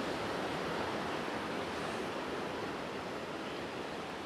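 Rough ocean surf breaking and washing against a rock jetty: a steady rush of water noise that eases slightly toward the end.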